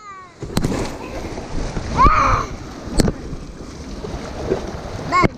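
Whitewater rushing as a kayak runs a rapid, with water splashing over the boat and paddle, a sharp splash about three seconds in. A short shout comes about two seconds in.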